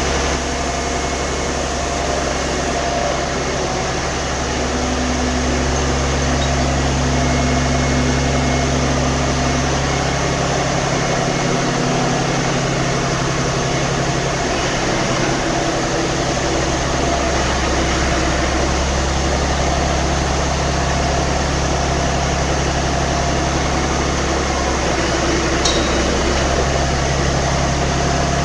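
Diesel engine of a Fiat-Hitachi FL175 crawler loader running steadily at idle, with small shifts in pitch midway.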